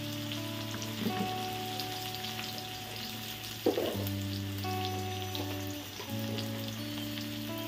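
Chopped onions sizzling and crackling in hot oil with cumin and asafoetida in a black wok, a steady frying hiss. Soft background music with held notes plays underneath.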